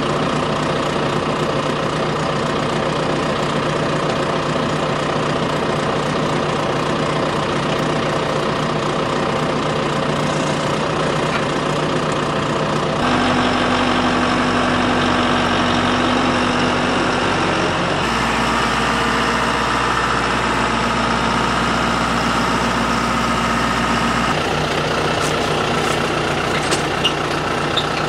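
John Deere 5100E tractor's diesel engine idling steadily, its tone changing abruptly a few times. A couple of light sharp clicks near the end.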